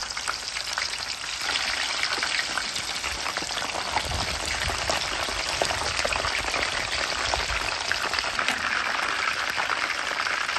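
Chicken wings deep-frying in a pan of hot oil, with a steady, dense bubbling and crackling.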